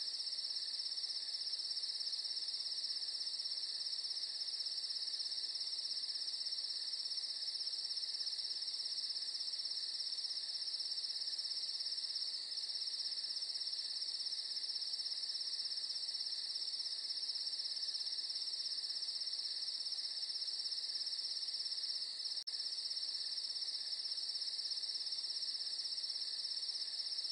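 A steady chorus of insects trilling at a high pitch, without a break, like crickets.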